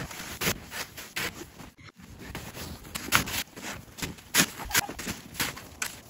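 Snow shovel digging into and scraping through deep snow, a run of irregular crunches and scrapes as snow is scooped and thrown aside.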